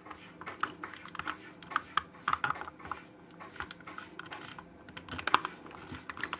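Hard plastic parts of a Transformers-style figure clicking and rattling in the hands as the dinosaur head is worked onto its clips. It is a scatter of small irregular clicks, a few louder ones among them.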